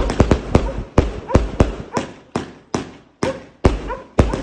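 Fireworks going off in a rapid, irregular string of sharp bangs, about three a second, each with a short trailing echo.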